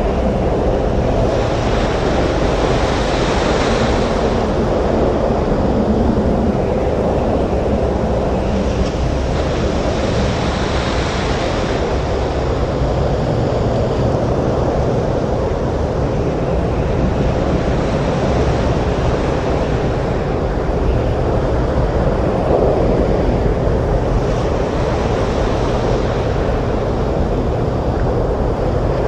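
Stormy surf and wind: a dense, steady rush of waves and wind, with the hiss swelling brighter three times, a couple of seconds in, around ten seconds in, and near the end.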